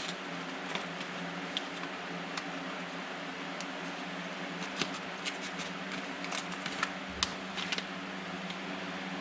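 Light clicks and rustles of small parts and packaging from a furnace propane conversion kit being handled and sorted, coming in a cluster in the second half. A steady low hum runs underneath.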